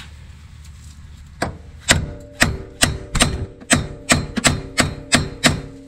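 Hammer blows on a castle nut threaded onto a tie rod end's stud, driving the tapered stud out of the steering knuckle of a Mitsubishi 3000GT VR4. About a dozen sharp strikes, roughly three a second, start about a second and a half in, and the metal rings between blows.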